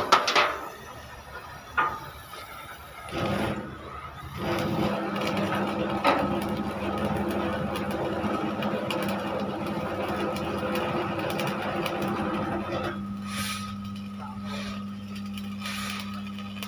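Workshop machine noise: a steady low hum throughout, with a louder hiss and rumble from about three to thirteen seconds, and a few sharp metal knocks near the start.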